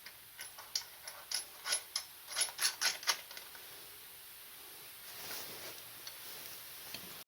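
Ratchet wrench clicking in short strokes as bolts are tightened down: about a dozen sharp metallic clicks over roughly three seconds, followed by fainter handling noise.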